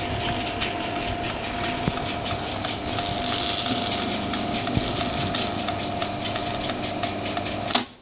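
Rolling shutter motor running through its gear train, a steady whine with fast ticking from the gears. Near the end a sharp click and the motor cuts off at once: the limit switch tripping at its set height.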